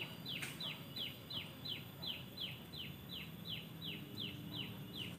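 A bird calling over and over: a fast, even series of short notes, each falling in pitch, about three a second.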